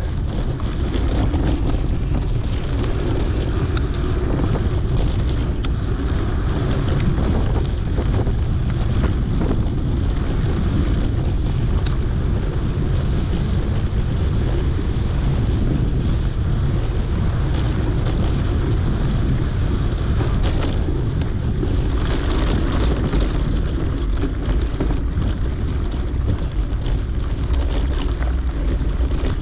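Wind rumbling on a GoPro's microphone as a mountain bike rides along a dirt trail, with scattered clicks and rattles from the tyres and bike.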